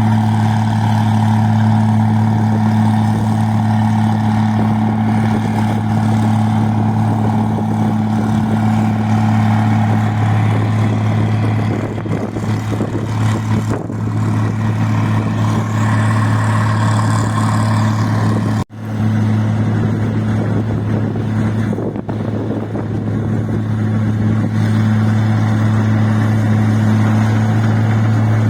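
Engine-driven rice machine running steadily with a constant deep hum, with a very short break about two-thirds of the way through.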